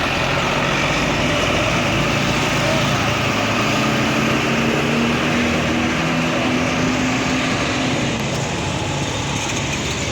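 Tour bus diesel engine running close by, a steady drone with a low hum that holds through the middle and eases a little near the end.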